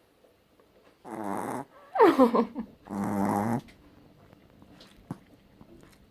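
Dog snoring in its sleep: three loud snores in quick succession starting about a second in, the middle one falling in pitch.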